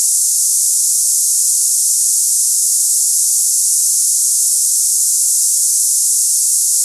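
Cicada-like tinnitus sound sample: a steady, high-pitched hiss with nothing low in it, unbroken and unchanging.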